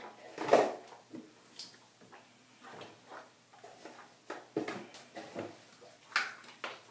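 A person swishing liquid mouth rinse around in the mouth with closed lips: a string of short, irregular wet sloshing and squelching sounds, the loudest about half a second in and another near the end.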